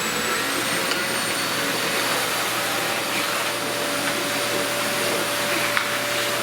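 Household vacuum cleaner, rigged as a dust collector, running steadily at full speed: an even rush of air with a steady high motor whine.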